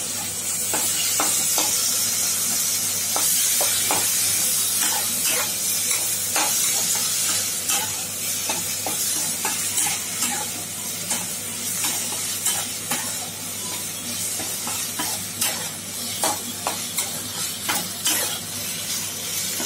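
Chopped tomatoes, onions and spice paste frying in oil in a kadai with a steady sizzle, while a spatula stirs and scrapes against the pan in irregular clicks and scrapes. The sizzle is strongest in the first few seconds, and the spatula strokes come thicker in the second half.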